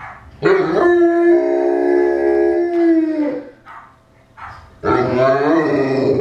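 Newfoundland dog howling: a long howl that slides up quickly, holds a steady pitch for a couple of seconds and falls away, then after a short pause a second howl begins near the end.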